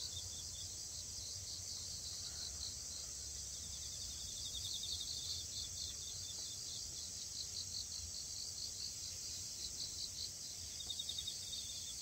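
Chorus of grass insects singing steadily at a high pitch. A faster pulsing trill stands out for a few seconds from about three seconds in, and again briefly near the end.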